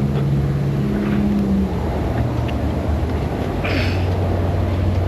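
Steady low mechanical drone whose pitch steps down about two seconds in, with a short hiss shortly before the end.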